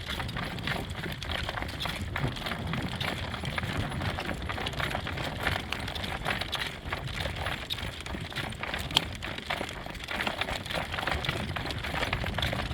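A harness horse's hooves beating at a working trot: many quick knocks and clicks over a steady low rumble.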